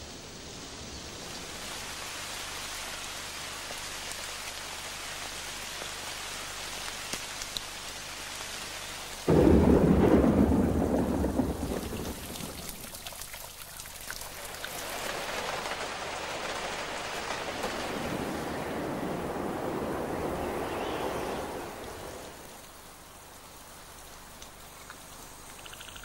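Rain falling steadily, then a sudden loud clap of thunder about nine seconds in that rumbles away over a few seconds, followed by a second long swell of thunder and rain that dies down near the end.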